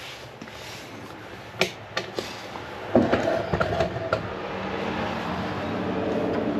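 Light clicks and rustling of a wiring harness and cables being pushed through a motorcycle's frame, growing louder about three seconds in, when a steady low mechanical hum sets in underneath.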